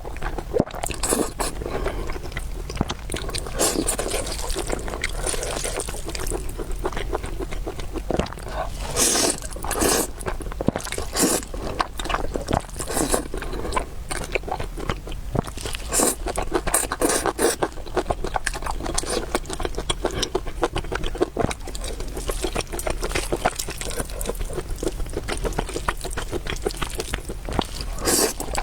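Close-miked eating of spicy noodles and soup: continual wet chewing and slurping, with short clicks and scrapes of utensils against the bowl.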